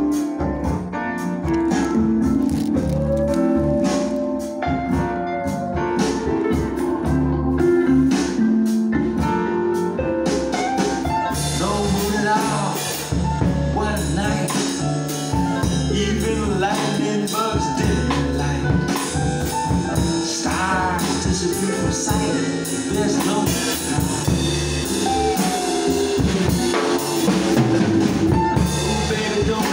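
A recorded song with bass and guitar, played along on an acoustic drum kit. Cymbals and drums come in about eleven seconds in and then keep a steady beat.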